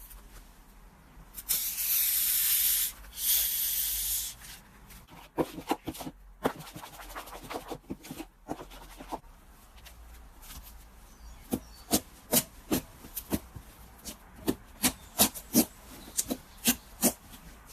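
A slime stress ball being cut: two short hissing bursts, then a run of sharp clicks and snips, about two or three a second near the end.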